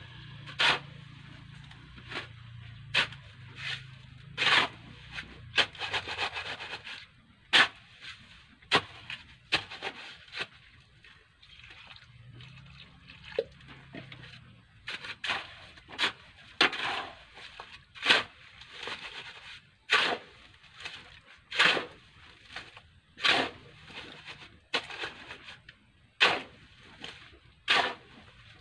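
A shovel scraping and chopping through a heap of sand and cement on bare ground as mortar is mixed by hand, in irregular strokes about one every second or so.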